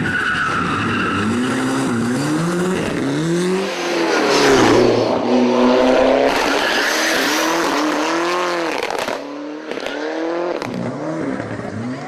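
Ford Sierra Cosworth's turbocharged four-cylinder engine driven hard, revving up and dropping back again and again as the car accelerates, shifts and lifts for corners. Tyre squeal runs under it from about four to seven seconds in.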